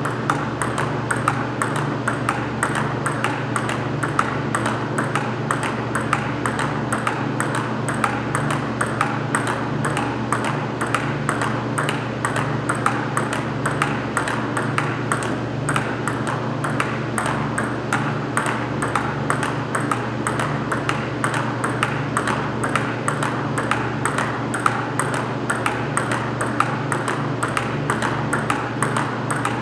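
Table-tennis ball being hit back and forth in continuous practice: sharp clicks of paddle strikes and table bounces in a steady, even rhythm of about three a second, over a steady low hum.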